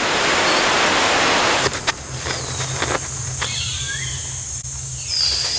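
Rainforest insect ambience. For the first couple of seconds it is a dense, even hiss; then it changes to a thin, steady high whine over a low hum, with faint whistled glides in the middle.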